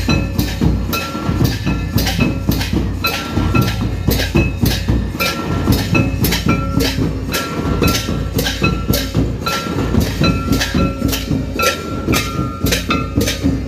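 Traditional Santali dance drumming: barrel-shaped hand drums and small brass hand cymbals played together in a steady rhythm of about three strokes a second, with a short ringing note about once a second.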